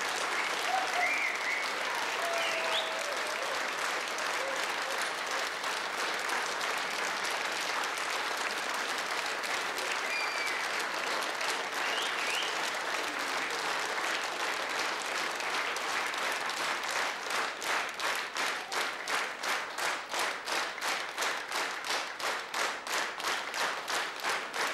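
Studio audience applauding. About two-thirds of the way through, the scattered applause turns into rhythmic clapping in unison, about two claps a second.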